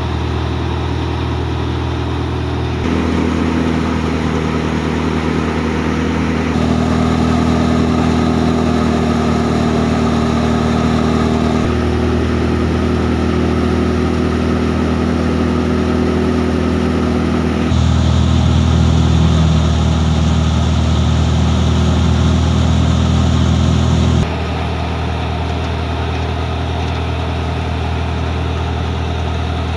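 Al-Ghazi tractor's diesel engine running under steady load, driving a thresher that is threshing mustard: a continuous loud droning hum of engine and machine. Its tone and loudness jump abruptly a few times.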